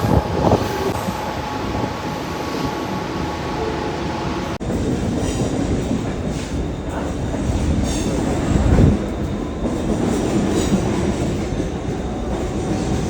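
Mumbai local train running: a steady rumble of wheels on the track with high squealing tones, then, after an abrupt change about four and a half seconds in, a louder rumble with scattered clattering.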